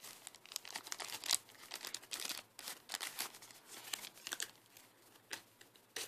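Paper, thin cardboard and a plastic bag rustling and crinkling in irregular bursts as a bagged knife and its paperwork are pushed into a small cardboard knife box and the box flaps are folded shut.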